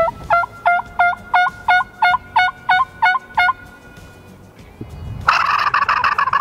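A run of about a dozen turkey yelps, about three a second, then after a pause a turkey gobble, a loud rattling burst that cuts off abruptly.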